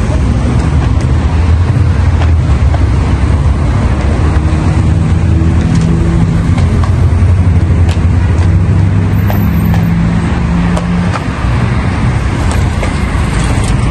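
City road traffic: cars and motorbikes driving past, a steady mix of engine hum and tyre noise with no single loud event.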